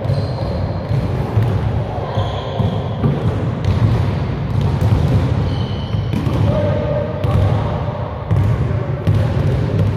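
Basketball bounced on a gym floor during one-on-one play, over a steady low hum. A few short high sneaker squeaks come about a second apart near the start and again midway.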